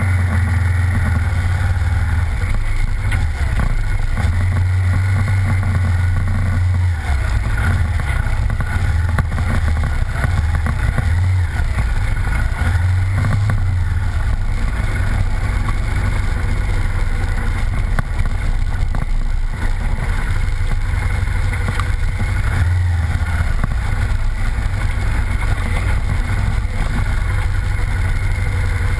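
Off-road vehicle engine running at a steady, wavering drone while driving, mixed with tyre and wind noise.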